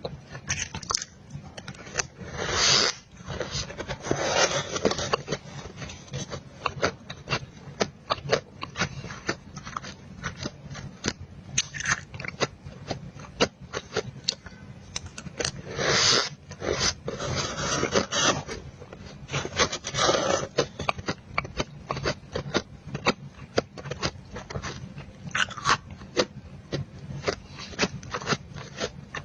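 Close-miked crunching and chewing of powdery freezer frost, with many quick crisp crunches. Several longer rasping scrapes of the frost stand out as the loudest sounds.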